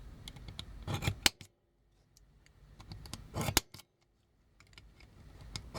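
Metal punch being worked against a pin in a die-cast toy: short sharp metallic clicks in a few small clusters, about a second in, around three and a half seconds, and again near the end.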